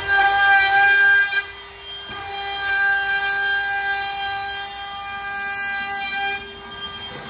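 Router with a roundover bit running at full speed with a steady high whine, rounding over the edge of a wooden wall panel. The rushing cutting noise of the bit in the wood dips briefly about two seconds in and fades a little after six seconds, while the motor keeps running.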